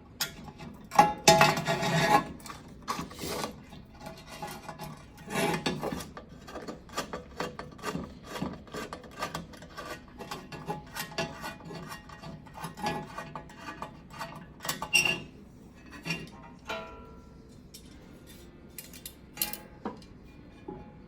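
Phillips screws being worked out of the oven's sheet-metal igniter mount with a screwdriver: many small metallic clicks and scrapes, with louder rasping rubs about a second in and again about five seconds in.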